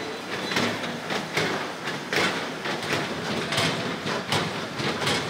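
Gym exercise machines in use, a treadmill among them, with a rhythmic clack about every three-quarters of a second over a steady running noise.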